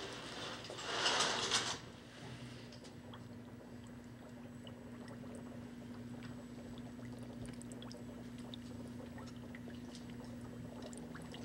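A curtain pulled along its rail, a scraping rush for nearly two seconds, then a steady low hum of lab equipment beside a water tank, with faint scattered ticks.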